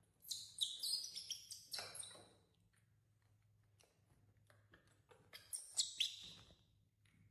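Young monkey squeaking in short, high-pitched chirps, in two bouts: one just after the start lasting about two seconds, and another about five seconds in.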